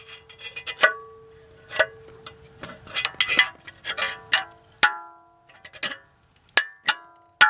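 Hand tools clinking and clanking against metal, a string of light knocks and taps. A few sharper strikes, one just before the middle and the loudest near the end, ring on with a bell-like metallic tone.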